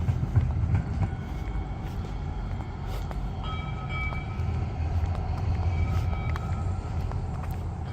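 A train passing with a steady low rumble. From about three and a half seconds in, several steady high-pitched tones come and go over it.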